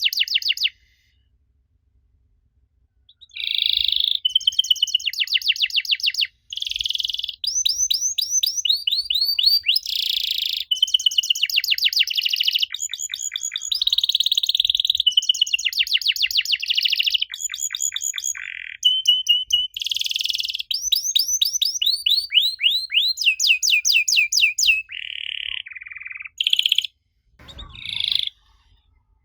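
Canary singing a long, varied song of rapid trills, each phrase a quick run of repeated notes, some sweeping downward, after a short pause about a second in. Near the end there is a brief low thump.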